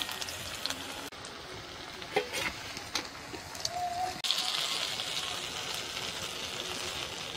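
Mustard oil sizzling in a kadhai as pieces of a banana snack shallow-fry, with a few sharp utensil clinks about two to three seconds in. The sizzle jumps suddenly louder about four seconds in.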